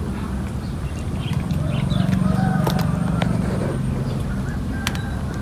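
Several cats eating fish and rice from a steel plate, with occasional sharp clicks against the plate, over a steady low hum that swells for a couple of seconds in the middle.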